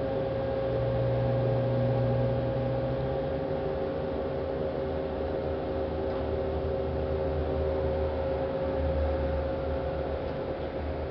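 Steady mechanical hum of the pontoon bridge's hydraulic winch machinery running as it pulls the floating barge open.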